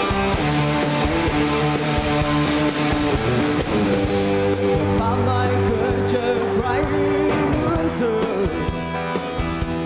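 A live rock band playing: electric guitar over bass and drums, with a man singing from about halfway.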